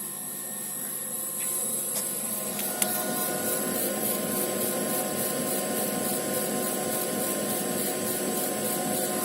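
Kamach II 1060 laser cutting and engraving machine running, its moving head making a printer-like whirring in a repeating pattern over a steady hum. The sound grows louder about a second and a half in, with a single sharp click just before three seconds.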